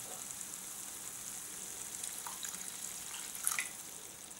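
A little water poured into a stainless frying pan of tomato and harissa sauce frying on low heat, running into the pan over a steady sizzle, with a few light clicks and a sharper one about three and a half seconds in.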